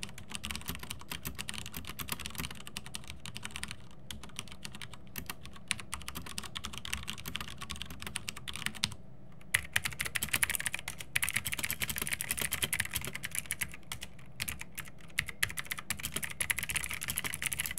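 Continuous typing on mechanical keyboards in two runs split by a short pause about nine seconds in: a sound comparison of tactile, clicky Kailh Blue switches on a Zalman ZM-K900M against linear Cherry MX Red switches.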